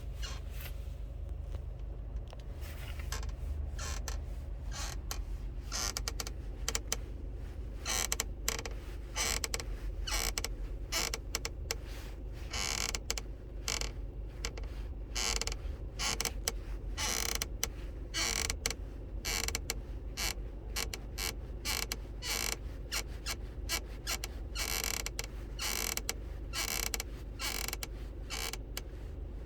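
Car seat belt buckle creaking and clicking over and over at an irregular pace, an unwanted noise from the buckle. The clicks are sparse at first and frequent from about six seconds in, over a steady low rumble.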